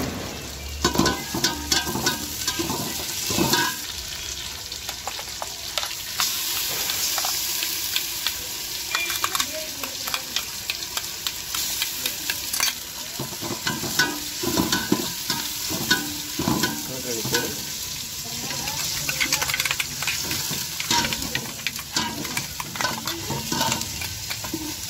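Sliced onions and mint leaves sizzling in hot oil in an aluminium pot, with a metal slotted ladle scraping and clinking against a steel cup and the pot rim as a ground masala paste is spooned in.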